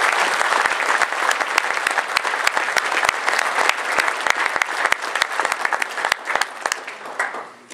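Audience applauding: a dense, steady patter of many people clapping, which dies away near the end.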